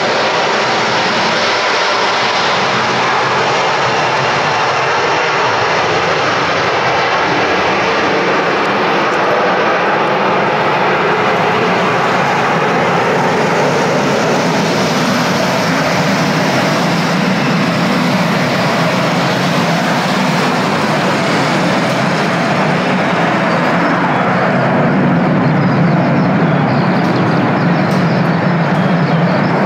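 Airbus A330 twin jet engines running, a loud steady noise with a low hum that grows stronger and slightly louder over the last several seconds.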